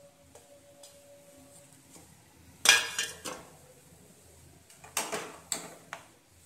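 Steel kitchen utensils clattering: a sharp metallic clank with a short ring about two and a half seconds in, two lighter knocks just after it, then a steel spoon knocking against the frying pan a few times as a yogurt and potato curry is stirred.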